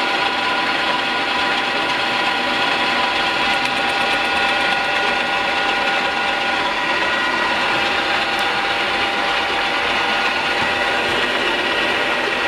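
A CNC-converted E1N lathe running, its chuck and workpiece spinning: a steady mechanical hum with a layered whine of several steady tones.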